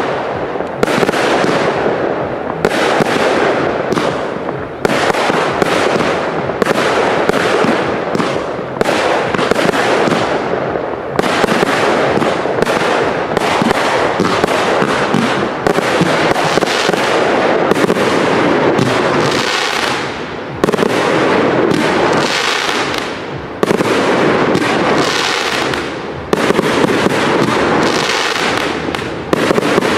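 Fireworks cakes firing an unbroken, rapid barrage of shots and small aerial bursts, several reports each second.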